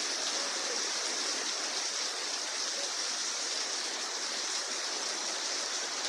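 Rain falling in a strong wind: a steady, even rushing hiss.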